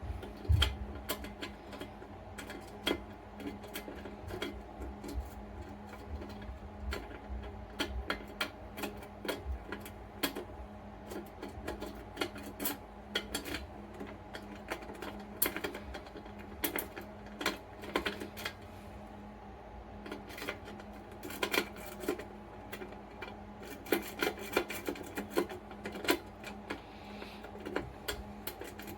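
Metal lock picks scraping and clicking inside the small wafer lock of a book safe, an irregular run of light ticks and scrapes while the lock is raked and probed.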